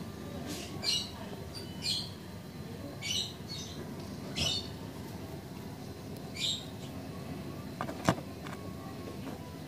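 Short, high bird chirps every second or two over a steady low background hum, with one sharp click about eight seconds in.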